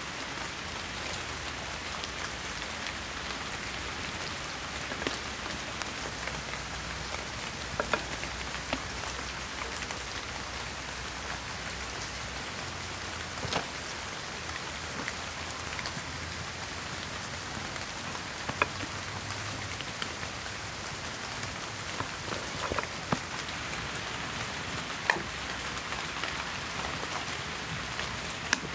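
Steady rain falling, with single louder drops or small taps standing out every few seconds.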